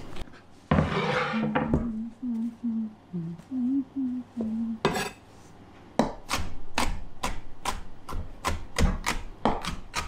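Chef's knife chopping pickled cucumber slices on a wooden cutting board, a fast even run of sharp chops about three a second from about six seconds in. Earlier, paper towel rustles briefly and someone hums a few short low notes.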